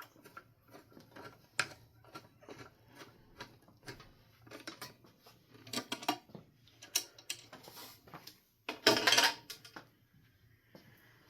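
Scattered clinks and knocks of hard metal and glass parts being handled, with a louder clattering rattle about nine seconds in.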